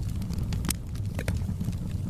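Wood fire in a fireplace crackling, with scattered sharp pops over a low steady rumble of the burning logs.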